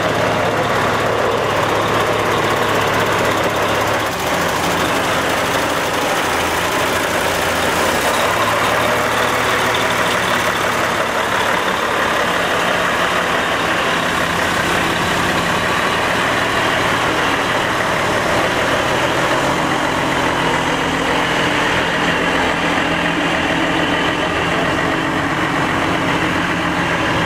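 Mercedes-Benz Actros 4146 dump truck's V8 diesel engine running steadily at low revs, idling and moving off slowly, with the engine note shifting a few times.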